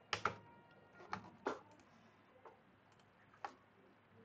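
Faint, scattered single clicks of a computer keyboard and mouse, about six spread irregularly over four seconds, the first two the loudest.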